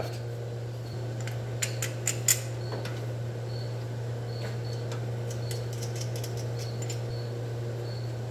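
A steady low electrical hum, with a few sharp clicks and ticks between about one and two and a half seconds in.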